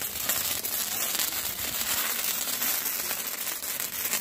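Several hand-held sparklers burning at once, a steady fizzing hiss with fine crackles.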